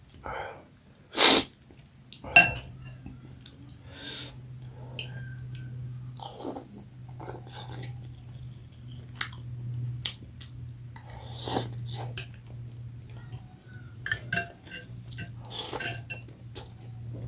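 Close-up eating sounds of momo dumplings in soup: scattered chewing and mouth noises, with two sharp louder sounds about one and two and a half seconds in. A low steady hum sits underneath from about two and a half seconds on.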